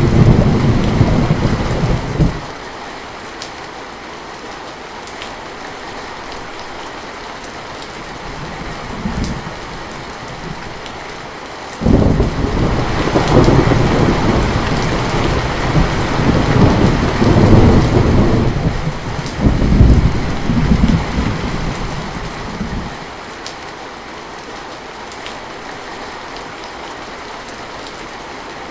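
Heavy rain falling steadily, with rolls of thunder: a short rumble right at the start, a faint one about nine seconds in, and a long rumble that breaks suddenly about twelve seconds in and rolls on for about ten seconds.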